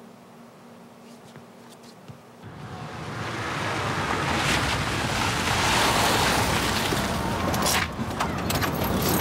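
A Lada Niva drives up a dirt-and-gravel road and pulls up. Its engine and tyre noise swell in after a faint room hum for the first couple of seconds, are loudest around the middle, and a few sharp crunches and clicks come near the end as it stops.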